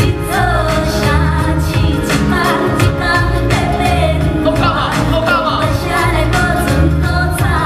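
Live band music: a sung vocal line over heavy bass notes and a steady drum beat.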